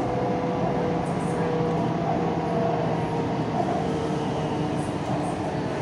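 BTS Skytrain electric metro train running, heard from inside the carriage: a steady rumble with an even hum.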